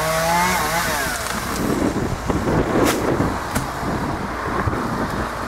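A chainsaw running, its pitch rising and falling as the throttle is worked, dying away after about a second and a half. Then a rough rustling, crackling noise follows, with two sharp cracks around the middle.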